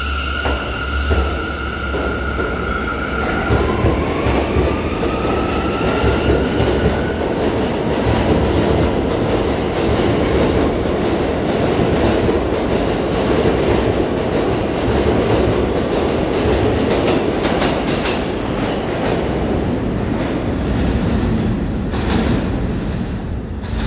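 Bombardier R179 subway train pulling out of an underground station. A steady electric whine from its propulsion rises in pitch over the first several seconds as it gathers speed. Then the wheels rumble and clatter over the rail joints as the cars pass, thinning out near the end as the train enters the tunnel.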